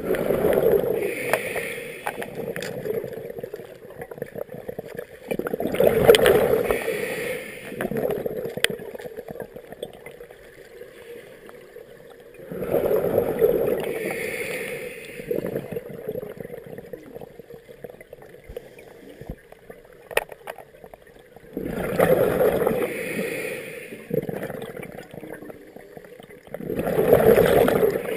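A scuba diver breathing through a regulator underwater. Five loud bursts of exhaled bubbles come at irregular intervals of about five to nine seconds, each lasting one to two seconds, with quieter breathing noise between them.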